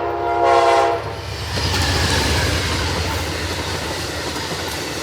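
Amtrak heritage locomotive 100's multi-chime horn finishing a chord, cutting off about a second in. Then the passenger train passes close by with steady wheel-on-rail rumble and rushing noise.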